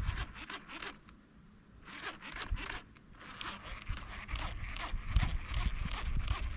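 Fishing reel being cranked to retrieve a lure: a rapid run of small clicks that pauses briefly about a second in, then carries on, growing a little louder.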